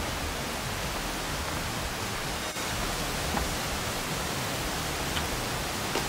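Steady, even rush of falling water from the Amadaki waterfall, with a few faint clicks.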